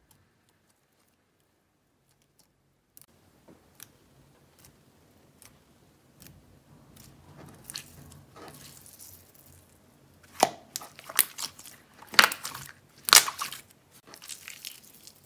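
Glitter-glue slime being handled: a few faint clicks at first, then from about ten seconds in louder irregular sticky crackles and squishes as the tacky slime is pulled and pressed.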